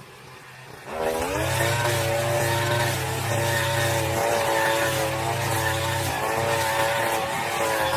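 Brush cutter engine revving up suddenly about a second in, then running steadily at high speed.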